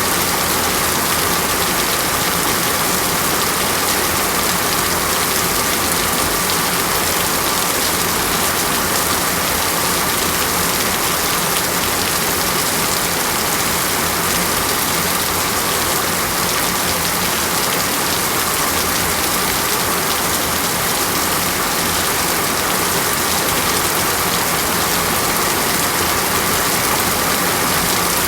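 Heavy rain falling steadily on a rainforest canopy, an even hiss with no change in loudness.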